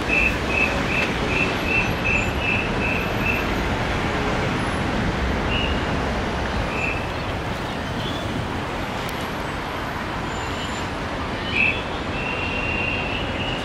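Steady rumble of road traffic on a busy city bridge. Over it, a run of about ten short high chirps comes in the first three seconds, about three a second, with a few more scattered chirps and one longer high note near the end.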